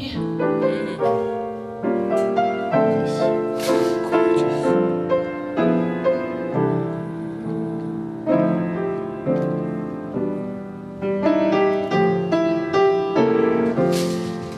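Piano accompaniment of a cabaret ballad playing an instrumental passage without the voice: chords with a melody line over them.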